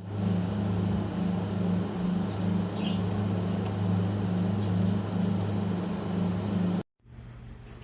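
A 120 mm PC case fan running close to the microphone: a steady rush of air over a low motor hum with a slightly pulsing tone. It cuts off abruptly about a second before the end, leaving a quieter hum.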